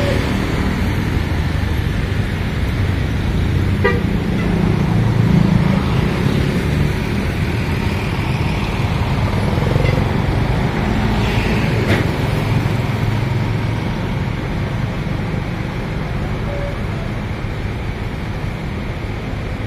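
Large tour bus diesel engine running close by, with a brief horn beep about four seconds in.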